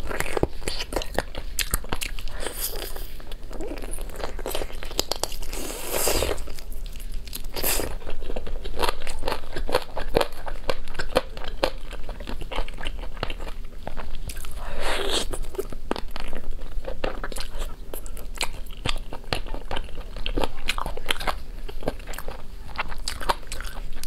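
Biting and chewing of sauce-glazed chicken wings: wet mouth sounds in a dense, uneven run of quick clicks, with meat being pulled from the bone.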